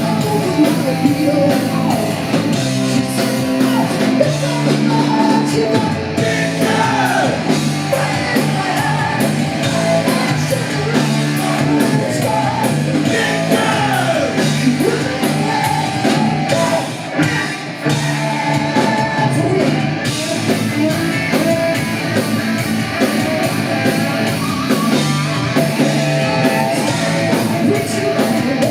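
Hard-rock band playing live, with singing over the band.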